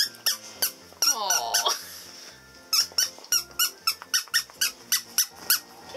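A dog biting down on a squeaky Christmas toy, setting off a quick run of sharp squeaks. There is a longer squeak sliding down in pitch about a second in, then a fast series of about three or four squeaks a second. Background music with a steady beat plays underneath.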